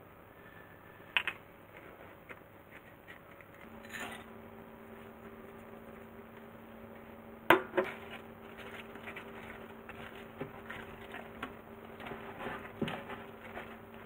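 Spatula stirring thick chocolate batter in a glass mixing bowl, scraping and ticking against the glass, with a few sharper knocks and the loudest knock about seven and a half seconds in. A steady low hum starts a few seconds in.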